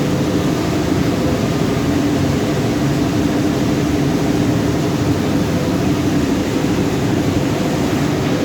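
Washing machine running: a steady electric-motor hum with a low drone that does not change.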